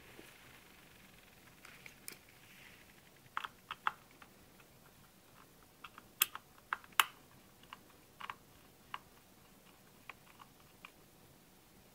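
Irregular sharp clicks and taps on a Sony VAIO SZ-series laptop, about a dozen spread unevenly, the loudest two a little after six and seven seconds in. They sit over a faint steady hiss.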